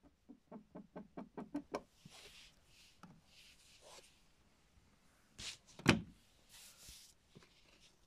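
Knuckles rapping quickly on the front of an LG WD-14370FD front-loading washing machine, about eight ringing knocks in under two seconds. Near the end the machine's door is pushed shut, a double thud with the second hit the loudest.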